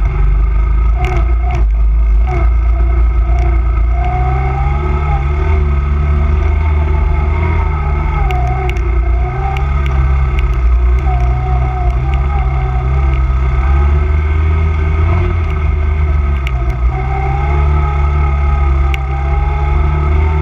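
Honda 250cc quad's engine running as it is ridden over rough, snowy ground, its note shifting up and down a few times with the throttle, with scattered clicks and clatter from the bumpy ride.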